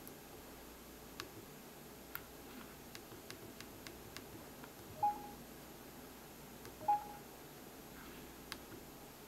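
Samsung NX11 camera's buttons and control dial clicking faintly as its menus are stepped through, with two short electronic beeps from the camera about two seconds apart in the middle, the loudest sounds.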